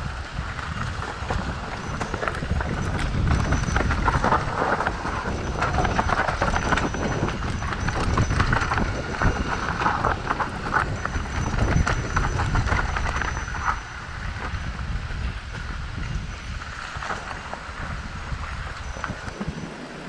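Mountain bike rattling and clattering down a rough, rocky trail: tyres knocking over stones, with the chain and frame clattering under a low rumble. The clatter eases off about two-thirds of the way through.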